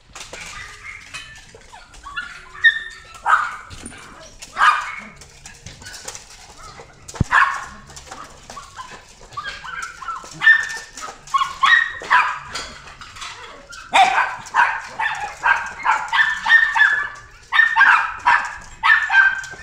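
Hokkaido dog puppy barking and yipping in short, high calls, a few at a time at first, then in a quick run of barks near the end.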